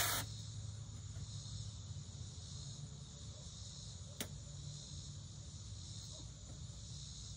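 Steady chorus of insects chirping, with a low hum underneath. A single short, sharp click sounds about four seconds in.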